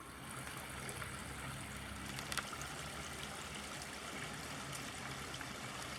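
A small spring-fed flow of water running steadily off a log and over rocks, trickling into a pond.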